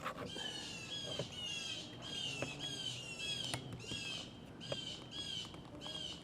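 A bird calling over and over, about two short pitched chirps a second, with a few faint clicks of hand work in between.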